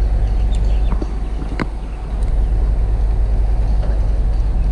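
Steady low rumble of wind buffeting the microphone, with a few light clicks in the first two seconds as a spinning reel is handled and wound.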